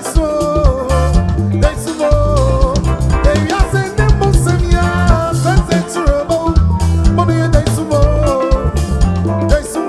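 Ghanaian highlife music: a band with a steady drum kit and bass groove under wavering melodic lead lines.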